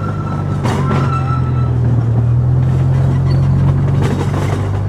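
Small tourist train running steadily, its engine giving a low, even drone, with a thin high squeal in the first second and a half.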